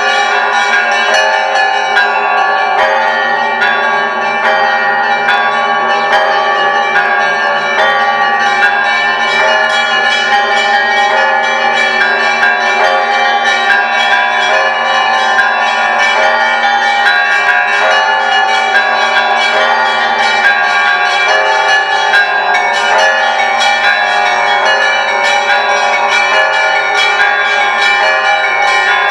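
Orthodox church bells of the Great Lavra Bell Tower ringing together in a continuous, fast peal: many quick strikes on the smaller bells over the steady, lasting hum of the larger bells.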